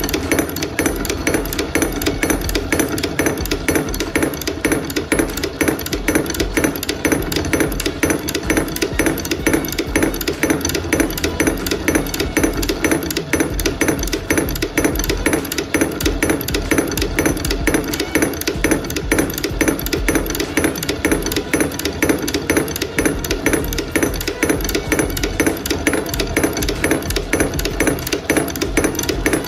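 Electric Casagrande liquid limit device running, its cam repeatedly lifting the brass cup and dropping it onto the base: a fast, even series of sharp knocks.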